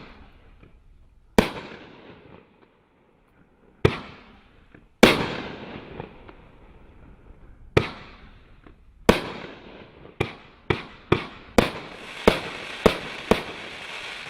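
Consumer fireworks cake firing: sharp shot reports a second or two apart, coming faster toward the end, with a crackling hiss filling in between the last shots.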